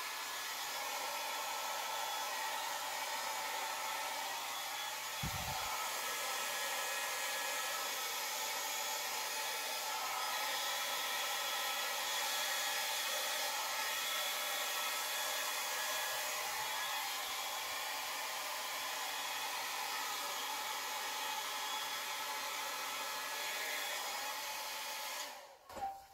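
Handheld hair dryer running steadily at full blow, used to push wet acrylic paint across a canvas, then switched off just before the end. A brief low thump about five seconds in.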